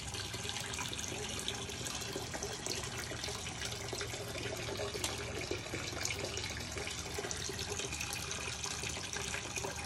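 Aquarium water trickling and splashing steadily at the tank's surface, with small bubbling ticks.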